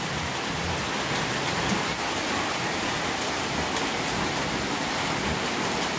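Steady rain falling, an even hiss with faint scattered drop ticks.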